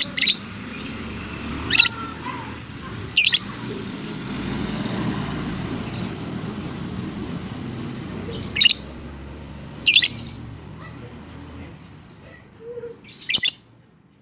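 Lovebird giving short, shrill calls, six of them spaced one to five seconds apart, over a steady low rumble of background noise.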